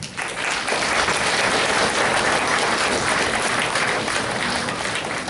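Audience applauding at the end of a song, a dense clapping that starts abruptly and begins to die down near the end.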